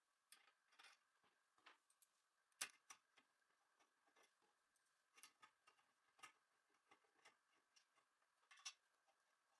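Faint irregular metal clicks and ticks of a hex key working the screws of a flange bearing on an aluminium end plate, the sharpest click about two and a half seconds in.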